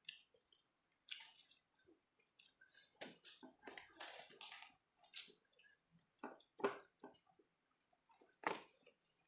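Close-up chewing and mouth noises of someone eating fried rice (nasi goreng) by hand, with soft sounds of fingers working the rice on its paper wrapping. The sounds come in short, irregular bursts, a little louder about six and eight and a half seconds in.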